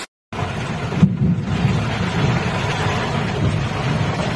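Heavy rain drumming on a vehicle's windshield and roof, heard from inside the cab, over the vehicle's low rumble as it drives. A single thump about a second in.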